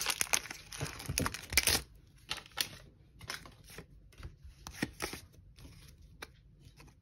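Foil wrapper of a Pokémon trading card booster pack crinkling and tearing open for about the first two seconds, then scattered soft clicks and rustles of the cards being handled.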